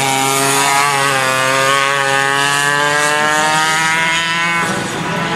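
Racing kart engines running at high revs as the karts go by, the pitch sinking slowly, then breaking off near the end, over a steady lower engine hum.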